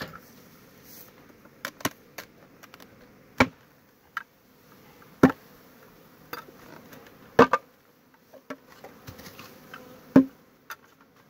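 Honeybees buzzing from an opened wooden hive, broken by about half a dozen sharp wooden knocks as hive boxes and parts are lifted and set down, four of them loud.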